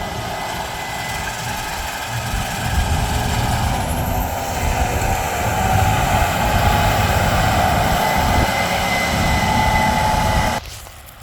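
Heavy harvest machinery running steadily, an engine's low rumble with a held whining tone, growing louder a couple of seconds in and again around the middle, then cutting off suddenly near the end.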